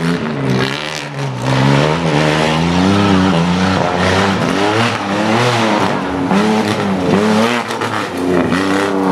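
Tough-truck engine revving hard on a dirt obstacle course, loud, its pitch rising and falling again and again as the throttle is worked, with occasional knocks.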